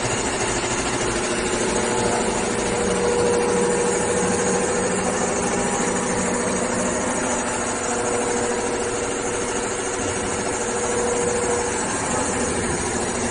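Automatic double-head industrial sewing machine for heavy leather running: a steady mechanical hum with a held tone that stops about two seconds before the end.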